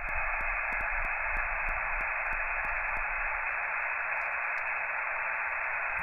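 Shortwave transceiver receiving an open ham band in SSB: a steady, narrow hiss of band noise, cut off sharply above and below the voice range by the receive filter, with faint evenly spaced ticks.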